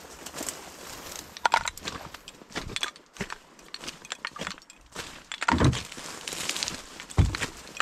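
Kayak forced through dense dry cattails: stalks crackling, snapping and scraping along the hull, with two dull thumps in the second half.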